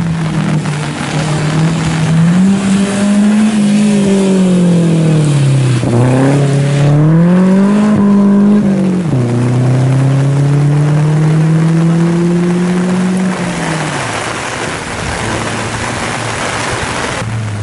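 Peugeot 206 rally car's engine passing at speed on a wet stage. The revs rise, fall as it slows and shifts down, then climb again. The pitch drops at a gear change about nine seconds in, then the engine climbs steadily as the car pulls away and fades. Once the engine has faded, steady rain hiss is left near the end.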